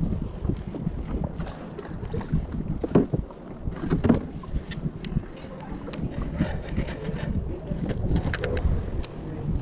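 Wind rumbling on the microphone, with scattered clicks and knocks of fishing rods and gear handled aboard a plastic kayak; two louder knocks come about three and four seconds in.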